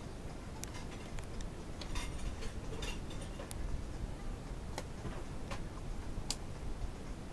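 Irregular clicks and crackles of a cardboard box as a cat pushes at it and climbs against it, a few sharp snaps standing out.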